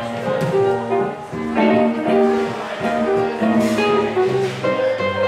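Live blues played on an archtop electric guitar and a stage keyboard in an instrumental break, with no vocals. Held bass notes sit underneath.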